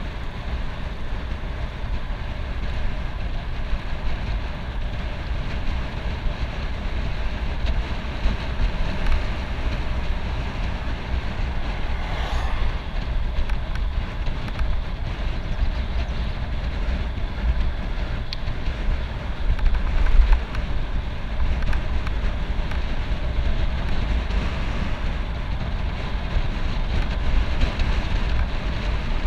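Road bicycle riding at speed on rough, cracked asphalt: a steady rumble of tyre, road and wind noise with a light rattle.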